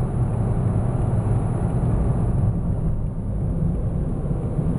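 Steady low rumble of a car cruising at highway speed, tyre and engine noise heard from inside the cabin.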